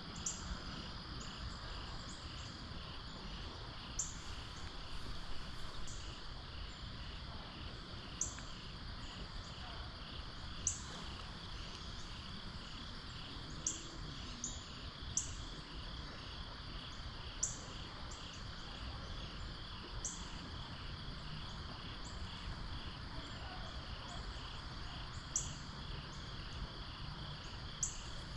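Crickets or similar insects chirping in a steady, rapid, even pulse. Sharp high ticks come every few seconds over a low steady background rush.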